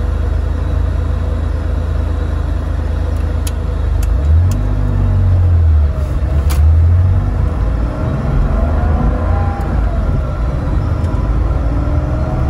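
Air-cooled Porsche 911's flat-six engine and road noise heard from inside the cabin while driving: a steady low rumble that swells for a few seconds about halfway through, with a few sharp clicks.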